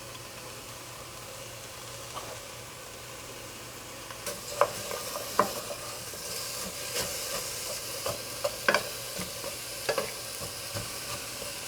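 Sliced onion sizzling in hot oil in a pan over high heat, with a utensil clicking and knocking against the pan from about four seconds in as the onion is stirred.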